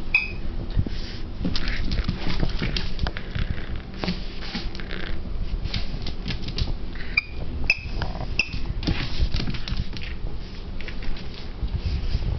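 Boston Terrier puppy playing rough with a stuffed toy: continual scuffling and rustling as it bites and shakes it, with a few short high squeaks.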